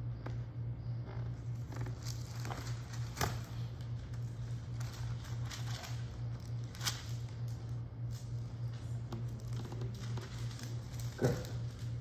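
Bible pages being leafed through: scattered short paper rustles and crinkles, with the loudest near 3, 7 and 11 seconds in, over a steady low hum.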